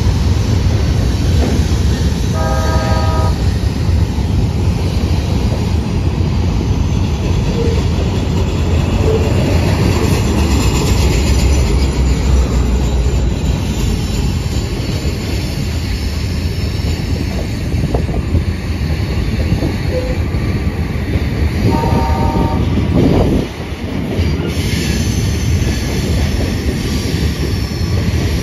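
Battery-powered Dallas streetcar running along the rails and passing close by, with a steady heavy rumble. It sounds its horn in a short blast about three seconds in, and again about 22 seconds in.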